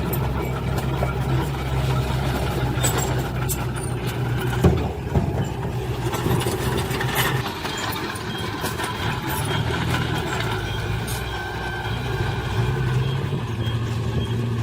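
Heavy diesel construction machinery engine running steadily, with a brief knock about a third of the way in. From about halfway, a faint high reversing alarm beeps repeatedly.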